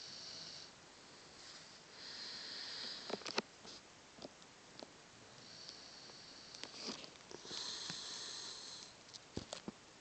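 A sleeping Cocker spaniel mix dog snoring, with about four rasping breaths, one every two seconds or so. Several short clicks fall between the breaths.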